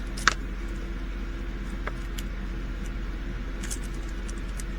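Steady low hum with a few faint, light clicks of small items being handled, one sharper click about a third of a second in.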